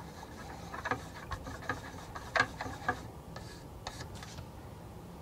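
Wooden stir stick clicking and scraping in a small cup of airbrush paint as the paint is stirred and thinned with reducer: a scatter of light irregular clicks, the sharpest about two and a half seconds in.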